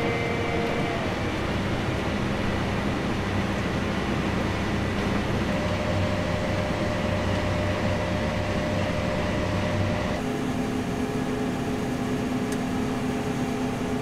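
Farm tractor running steadily while pulling a grain cart, heard inside the cab: an even mechanical drone with a few held whining tones that change pitch about ten seconds in.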